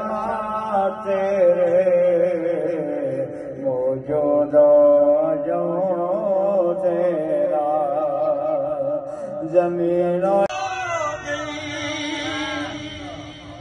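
Islamic devotional chanting by a man's voice, with long held, wavering notes. About ten seconds in it changes abruptly to a brighter passage with sliding pitches, then fades.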